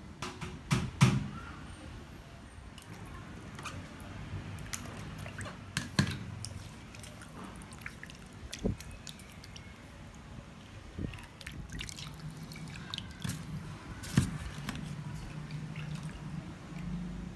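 Raw fish being washed by hand in a stainless steel bowl of water: splashing, dripping and wet squishing, with occasional sharp knocks of fish and hands against the bowl.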